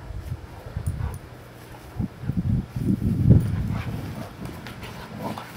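Two Newfoundland dogs play-fighting, with low, irregular grunting and scuffling that is loudest about three seconds in.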